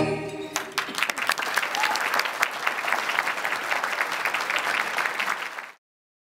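Audience applauding, with many hands clapping, as the last held chord of the song dies away in the first half second. The clapping cuts off suddenly near the end.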